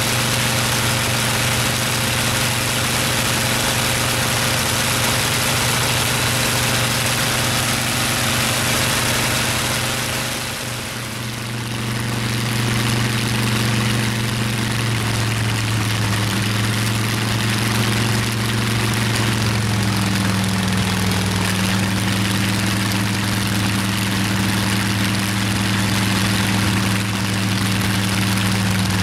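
Bristol Hercules fourteen-cylinder sleeve-valve radial engine running steadily on its test stand. There is a brief dip in level about eleven seconds in, after which the engine note drops slightly lower, twice.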